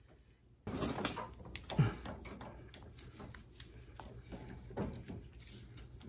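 Small metal clicks, taps and scrapes of a screwdriver working against a lawn tractor's tie rod end and front spindle steering arm, starting under a second in, with one louder knock near two seconds.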